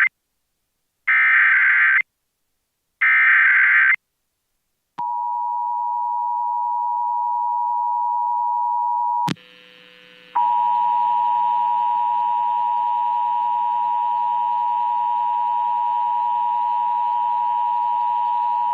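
Emergency Alert System SAME header: two one-second bursts of raspy digital data two seconds apart. These are followed by the EAS attention signal, a steady tone near 1 kHz. About four seconds in, the tone breaks off at a click, and after a second of hiss it starts again over a noisier, humming background for about eight seconds.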